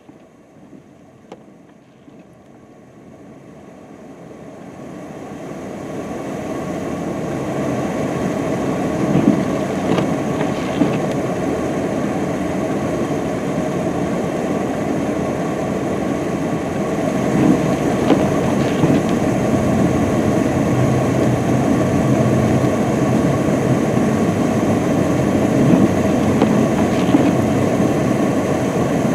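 UPS delivery truck's engine revving while its rear wheels spin in deep snow, growing louder over the first several seconds and then running steadily. There are a few surges in pitch as the engine revs harder.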